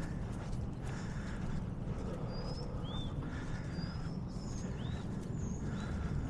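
Footsteps at a walking pace over a steady low rumble of wind, with a small bird giving short chirps several times from about two seconds in.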